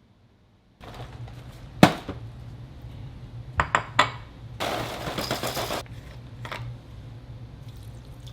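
Objects being handled and set down: a loud knock about two seconds in, three quick clicks near the middle, and about a second of rustling, over a low steady hum.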